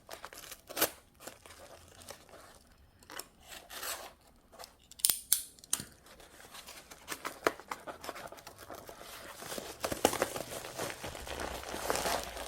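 A mail package being opened by hand: scattered sharp clicks and tearing, then denser crinkling of plastic packaging from about ten seconds in.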